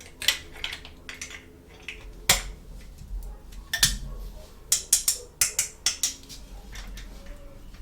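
Small plastic toy kitchen pieces being handled, giving irregular sharp clicks and taps that come thick and fast a little past the middle.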